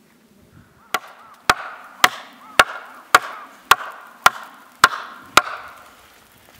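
Axe chopping wood: nine sharp strikes about half a second apart, each with a short ringing tail.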